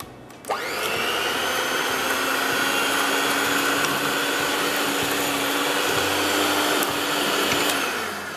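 Electric hand mixer switched on about half a second in, its whine rising briefly and then running steadily as the beaters cream butter and caster sugar; it winds down near the end.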